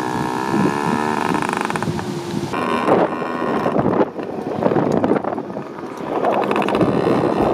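Small children's motorbike engine running at steady speed, a high whine from behind the rider. A couple of seconds in the sound changes abruptly to the bike-mounted view, where wind buffets the microphone over the engine.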